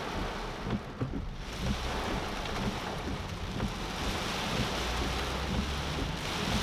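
Extremely heavy rain pelting a moving car, heard from inside the cabin as a dense, steady hiss over the low rumble of the engine and tyres.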